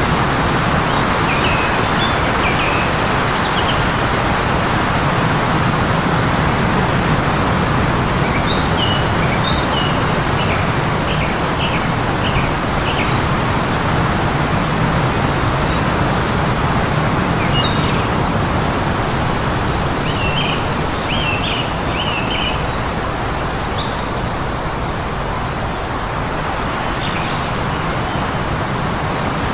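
Heavy blizzard wind blowing steadily, with birds chirping in short runs of quick high notes every few seconds.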